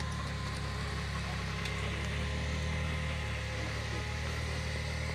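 Rock-crawling trial buggy's engine running at low, steady revs as the buggy creeps over large rocks.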